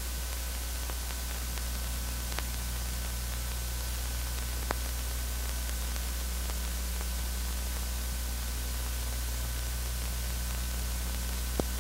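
Steady hiss and low hum of an old film soundtrack, with a few faint clicks.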